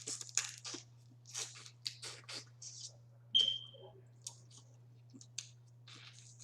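Close-miked eating of boiled crawfish: irregular clicks and crackles of shells being broken and peeled, with chewing and mouth smacks. A steady low hum sits underneath.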